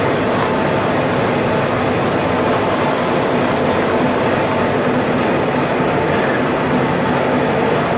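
Adcock & Shipley Bridgeport-type milling machine taking a cut along the top of a long round bar under table feed: a steady machining noise with a faint hum under it.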